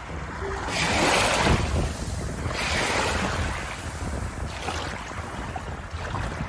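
Ocean waves breaking and washing in, rising and falling in repeated swells over a steady low rumble.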